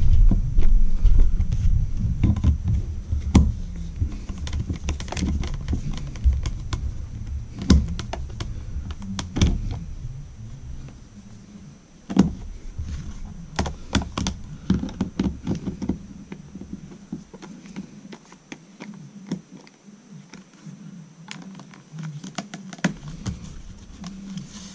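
Screwdriver and long outlet mounting screws clicking, tapping and scraping against the outlet's metal strap and the plastic box extender as a screw is worked to catch in its hole, in irregular clicks with a low rumble through the first half that fades out.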